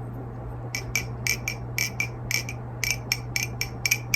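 6061-aluminium-handled balisong (NRB Vortex) being flipped: a quick, irregular run of sharp metallic clicks, about four or five a second, each with a short bright ring, as the handles and blade swing and hit their stops. The clicks start about a second in, over a steady low hum.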